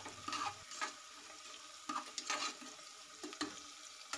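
Vegetables frying in oil in a pressure cooker while being stirred: a faint sizzle under a handful of short scrapes of the stirring spoon against the pot at uneven intervals.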